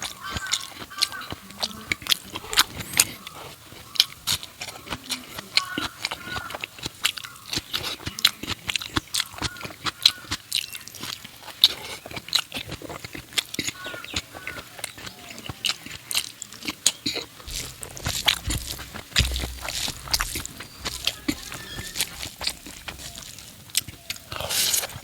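Close-miked chewing of fatty pork curry and rice: wet mouth clicks and smacks come many times a second, with a brief low rumble a little past the middle.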